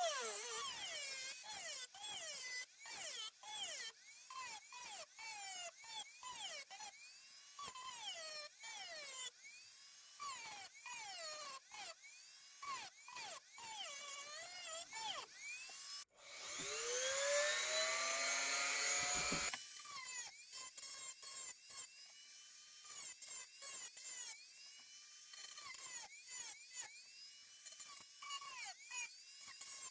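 Small high-speed rotary tool cutting through a steel knife blade to remove a chipped section, in many short passes whose motor pitch dips as it bites the metal and recovers. About 16 seconds in, it runs longer, its pitch climbing as it spins up, and it stops a few seconds later.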